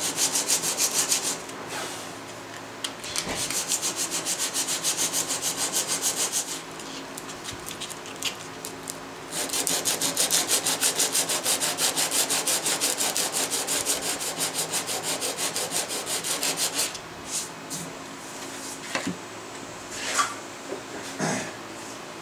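Sandpaper wrapped around a wooden block rubbed by hand over a hardwood mallet head in quick back-and-forth strokes, in three runs separated by short pauses. The strokes stop a few seconds before the end, leaving a few light knocks.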